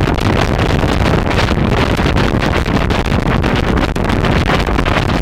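Strong wind buffeting the microphone in about 25 knots of breeze, with water rushing along the hull of a sailboat under sail. A loud, continuous, gusting noise that never lets up.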